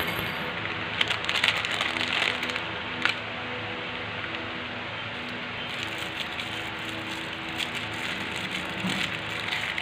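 Plastic candy wrappers crinkling and crackling as they are handled, with sharp crackles about one to three seconds in, over soft background music.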